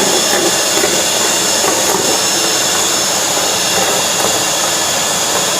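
25-litre wet-and-dry vacuum cleaner running steadily, its motor and suction air making an even, high hiss as it sucks up dirt from the floor.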